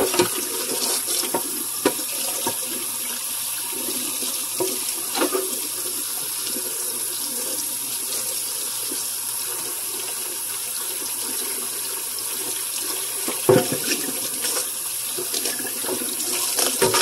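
Kitchen faucet running steadily into a stainless steel sink, with a few short knocks as a raw turkey is handled under the stream; the loudest knock comes about two-thirds of the way through.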